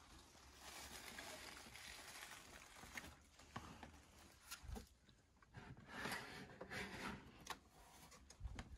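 Near silence, with faint rustling and a few light taps and clicks of handling.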